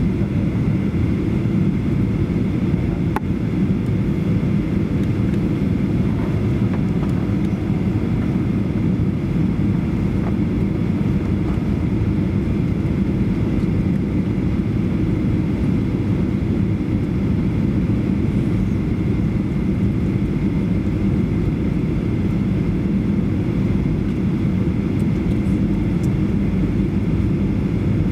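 Steady cabin noise inside a Boeing 737-800 on final approach, heard from a rear seat: the low rumble of its CFM56 turbofan engines and the airflow over the extended flaps, with a faint thin tone above it. One light click about three seconds in.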